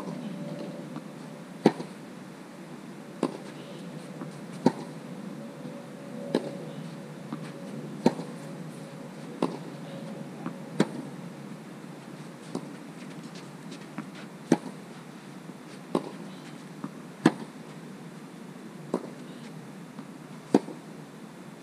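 Tennis balls struck back and forth with racquets in a steady baseline rally: sharp pops about every one and a half seconds, the near player's strikes louder than the far player's, with softer ball bounces between. A faint steady hum is heard through the first half.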